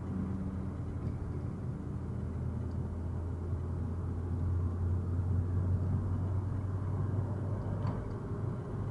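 Steady low road and engine drone inside a moving car's cabin, picked up by a dashcam's built-in microphone while cruising at about 50–55 km/h.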